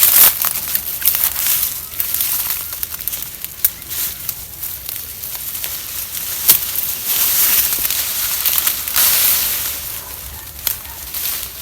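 Close-up crunching and wet crackling of someone chewing green papaya salad, in uneven bursts of crisp clicks that grow denser and louder about seven seconds in.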